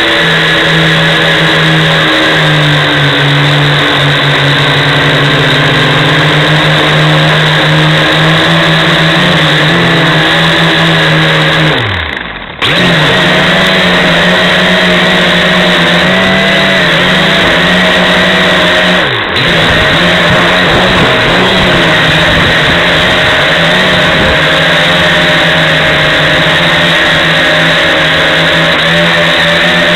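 Electric motors and propellers of a small multirotor drone buzzing loudly, heard on board. About twelve seconds in the motors slow for a moment, the pitch falling and the sound dropping away, then spin back up. A shorter dip comes about seven seconds later.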